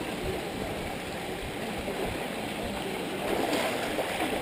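Outdoor swimming pool ambience: a steady rush and splash of water, with faint voices of bathers, a little louder about three and a half seconds in.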